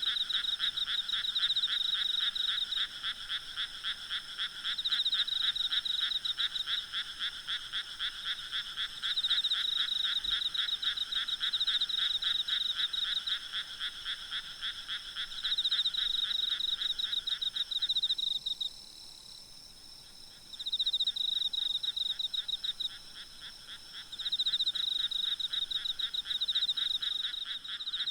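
Frogs calling in a dense night chorus of rapid, pulsing croaks, with insects trilling steadily higher up. The chorus thins for a few seconds about two-thirds of the way through, then picks up again.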